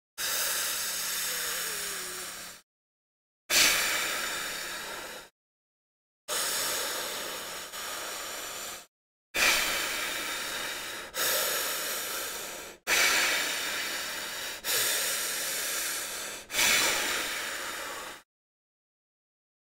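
A man taking deep breaths, about eight long, noisy breaths of one and a half to two and a half seconds each, with dead silence between them. This is the breathe-up before a breath hold.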